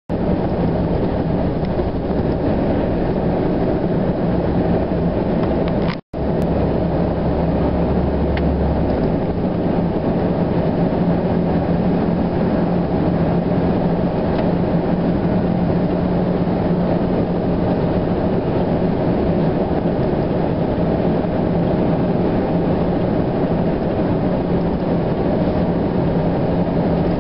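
Steady engine and road noise inside a vehicle's cabin cruising on a highway, with a constant low drone. The sound cuts out for an instant about six seconds in.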